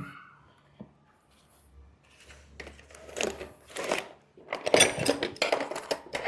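Metal hand tools clinking and rattling against each other and the bike's metalwork, a few single clicks and then two bursts of clatter, as spanners are handled and worked on the exhaust bolts.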